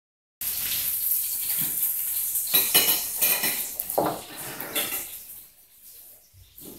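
A puppy and a kitten scuffling on a laminate floor: paws and claws scraping and tapping, with a cluster of sharp clatters about three seconds in. The scuffling dies down near the end.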